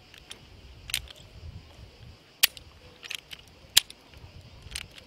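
A revolver's hammer and trigger clicking about five times at uneven intervals with no shot going off: dry-firing on empty chambers.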